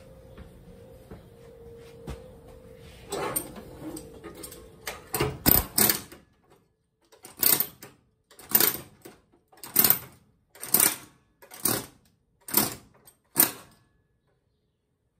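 Pneumatic air hammer (air chisel) fired in short bursts against the rusted sheet-metal floor pan to cut it loose. A few irregular bursts come first, then seven short bursts about one a second, stopping near the end.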